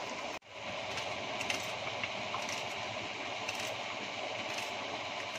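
Chopped onion being tossed and mixed by hand in a bowl: a steady rustle with small scattered clicks, broken by a brief gap about half a second in.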